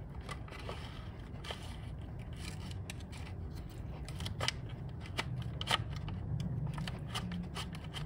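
120 film backing paper being threaded into the take-up slot of a Rolleiflex SLX film cartridge and wound on by hand: papery rustling and crackling, with scattered small sharp clicks from the plastic cartridge and spool.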